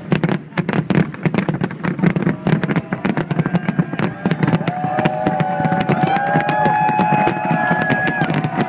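Fireworks going off in a rapid, dense crackle of many small pops a second, over a steady low rumble. About halfway through, several steady high tones join in and hold for a second or two each.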